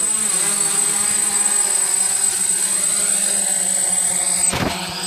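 DJI F550 hexacopter's six brushless motors and propellers buzzing with a high whine as it comes down to land, the pitch shifting as the motors adjust. Near the end a knock as it touches down, the whine cuts off and the motors start to spin down.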